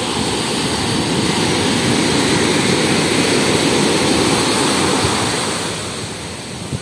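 Large sea waves surging and breaking on the shore, a loud continuous rush that eases off near the end.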